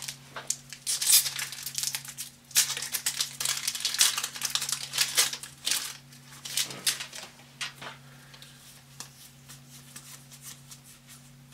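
Foil booster-pack wrapper crinkling and tearing as it is opened, a dense run of crackles for the first six seconds or so, then quieter scattered clicks and rustles of the cards being handled. A steady low hum runs underneath.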